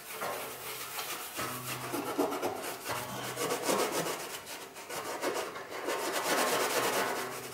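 A hand-held scouring pad scrubbed back and forth over the rusty original paint of a Vespa's steel bodywork, a steady run of quick rubbing strokes taking off surface rust and grime.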